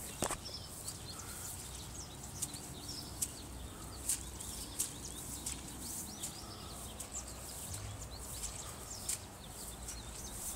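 Small birds chirping repeatedly in short, high calls over a low, steady outdoor background.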